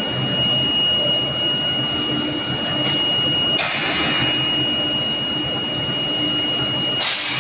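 A steel-bar induction heat treatment line running: a steady high-pitched whine over a low hum and general machine noise. Short bursts of hiss come about a third of the way in and again near the end.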